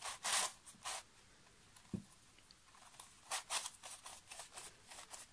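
Plastic pieces of the Spartacus, a large 3D-printed dodecahedral twisty puzzle, rasping and clicking as its faces are turned by hand. The short scrapes come in a few bursts, with a sharp click about two seconds in.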